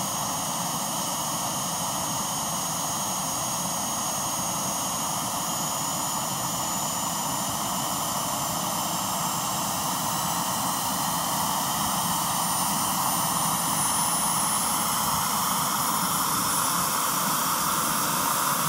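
Gas turbine engine of a large RC scale UH-1 Huey helicopter starting up. A steady hissing whine has high tones that slowly climb in pitch and grow louder as the main rotor begins to turn.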